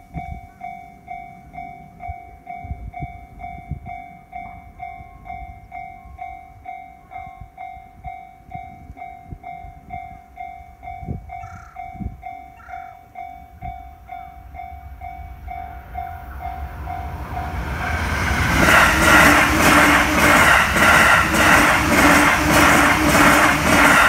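Japanese level-crossing warning bell dinging steadily, about two strikes a second. About two-thirds of the way through, an E657-series limited-express electric train approaches and passes at speed, growing loud and drowning the bell, its wheels clattering rhythmically over the rail joints.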